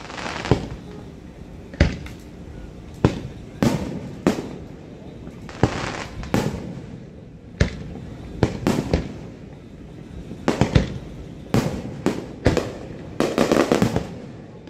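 Aerial fireworks shells bursting: a steady run of sharp booms, roughly one a second, each with a short echoing tail, and a quick burst of crackling reports near the end.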